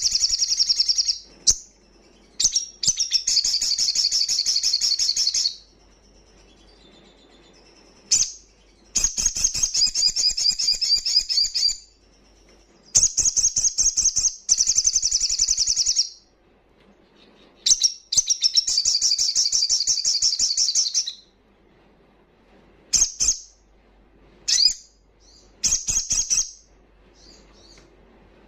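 Male olive-backed sunbird singing loudly: long, rapid, high-pitched trills lasting a few seconds each, repeated after short pauses, breaking into shorter bursts near the end.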